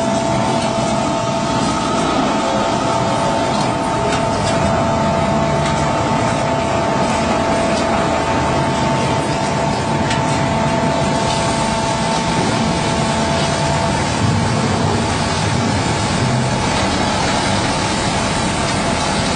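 Concrete mixer pump machine running steadily, a loud continuous mechanical noise carrying two steady tones, the lower of which stops about 14 seconds in.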